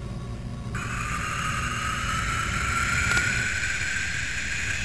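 Sampled jet engine sound effect played back by an Amiga: a low rumble, then about a second in a high jet whine cuts in suddenly and slowly rises in pitch as the rumble fades.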